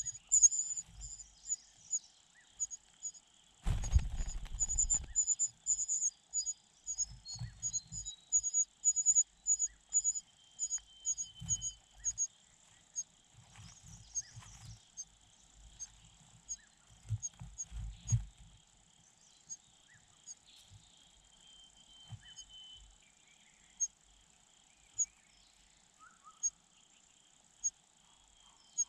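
Insects chirping: a run of short, high ticks, fast at first and sparser in the second half, over a faint steady buzz. Irregular low thumps and rustles come and go, with a louder burst of rustling about four seconds in.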